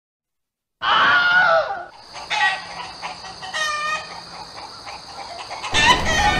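Rooster sound effect: a loud crow about a second in, followed by two shorter calls. Near the end, crowd bustle and footsteps set in.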